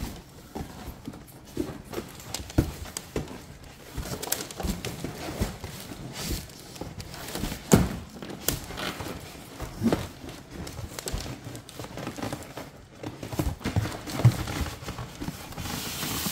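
A cardboard box and its plastic packing straps being handled: irregular knocks, thumps and rustles, with the loudest thumps about eight and ten seconds in.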